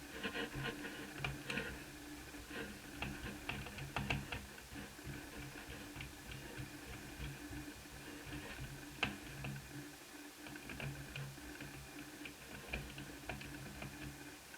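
Irregular small clicks and taps of plastic and metal laptop parts being handled and unclipped during disassembly, one sharper click about nine seconds in, over a steady low hum.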